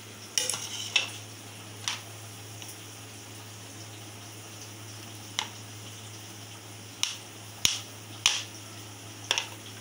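Kitchen dishes and utensils clinking and knocking as they are handled: about eight separate short knocks scattered through, over a steady low hum.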